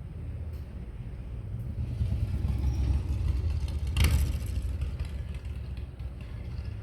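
Motorcycle passing by, its engine rumble swelling to a peak about three to four seconds in and then fading away. A single sharp click sounds near the loudest point.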